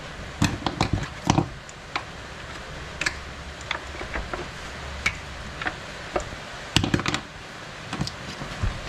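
Scattered clicks and knocks of hand tools and metal and plastic parts being handled while a concrete saw is put back together, busiest about a second in and again around seven seconds in.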